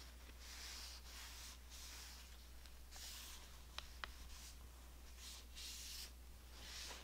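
A cloth wiping down a rifle: faint, soft rubbing strokes about once a second, with two small clicks about four seconds in, over a low steady hum.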